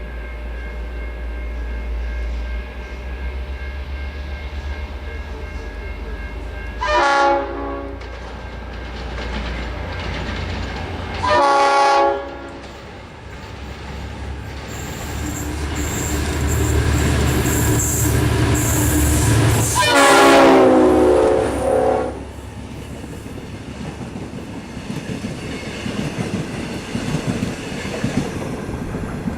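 Diesel locomotive N470 passing with its engine running, sounding its horn three times: a short blast, a slightly longer one, then the longest as it draws near. Wheels then clatter over the rail joints as the train goes by.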